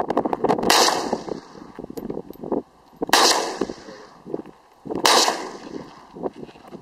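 SKS semi-automatic rifle in 7.62×39mm fired three times, about two seconds apart, each shot trailing off in a long echo, with fainter pops between.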